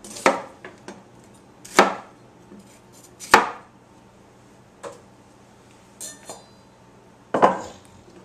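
Chef's knife cutting a pepper on a wooden cutting board: four sharp knocks of the blade striking the board, the first three about a second and a half apart, with two fainter taps between the last two.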